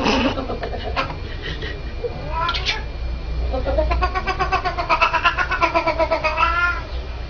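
Siamese cat yowling: a couple of short cries, then one long drawn-out wail from about three seconds in that rises and falls in pitch.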